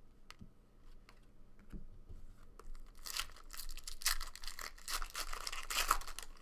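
A few faint clicks of cards being handled, then from about three seconds in a trading-card pack's wrapper is torn open and crinkled by hand for about three seconds.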